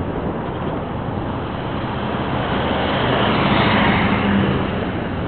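Wind noise on the microphone of a moving bicycle, with a car passing close alongside: its engine and tyre noise swell to a peak about three to four seconds in, then ease off.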